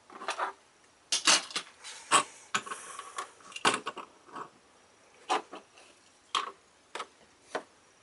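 Small hard plastic parts and packaging being handled and set down on a tabletop: a string of sharp clicks and knocks at uneven intervals, with a brief rustle about three seconds in.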